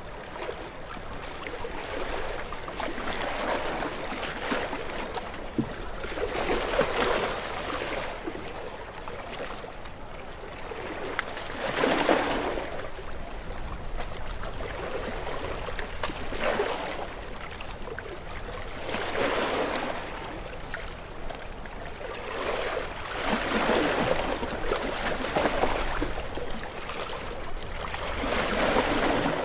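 Small waves washing in and breaking, one surge every three to five seconds, with steady wind noise underneath.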